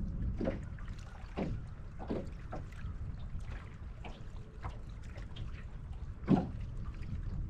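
Small waves lapping and slapping against an aluminum boat hull in irregular splashes, one louder slap about six seconds in, over a steady rumble of wind on the microphone.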